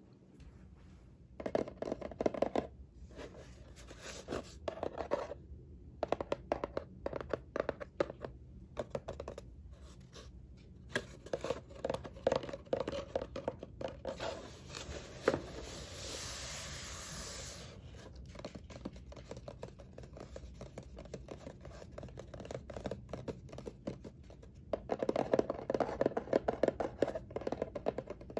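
Fingernails and fingertips tapping and scratching on a corrugated cardboard box, with a few seconds of steady scratching about halfway through and a quicker run of taps near the end.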